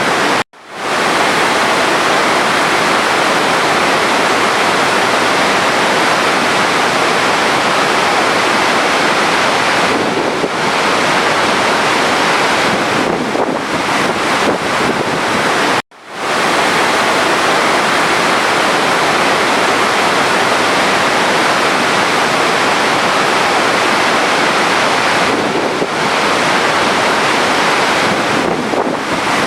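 Steady rushing running water, a loop that cuts out briefly and fades back in twice, about half a second in and again about sixteen seconds in.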